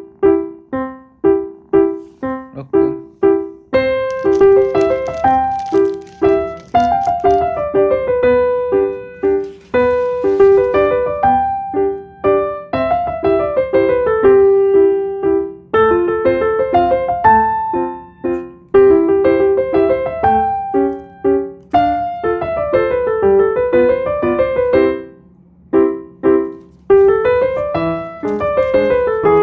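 Background keyboard music: a bouncy tune that opens with short, detached repeated chords. A fuller accompaniment and a moving melody join about four seconds in, with a brief pause near the end.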